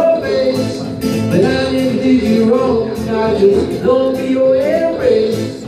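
Live loop-pedal music: a man singing into a microphone over layered looped backing that includes guitar.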